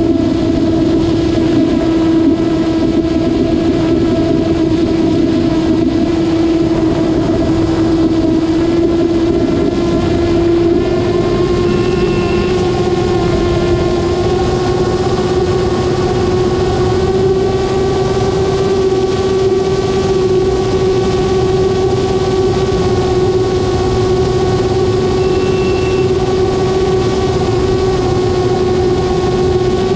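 Steady drone of a propeller aircraft's motor in flight, with wind rushing over the airframe and camera. The pitch edges up slightly about a third of the way through, and a short high beep sounds twice.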